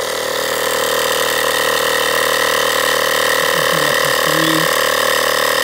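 Small electric tire-inflator compressor running steadily at one even pitch, pumping air into a sealed jet ski engine to pressurize it for a leak-down test.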